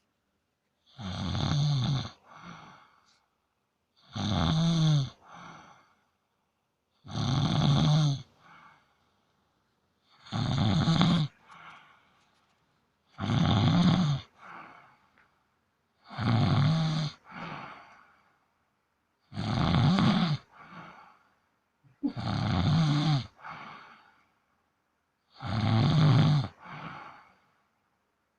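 Domestic cat snoring in its sleep: about nine loud snores, one roughly every three seconds, each followed by a shorter, fainter breath.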